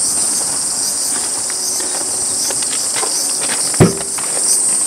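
Steady high-pitched chorus of summer insects. About four seconds in, one sharp clunk as the rear door latch of a Toyota Land Cruiser 70 is pulled open.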